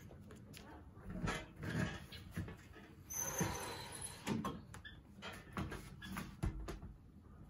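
Irregular footsteps and light knocks as someone steps into slippers on a balcony floor and handles a plastic laundry basket.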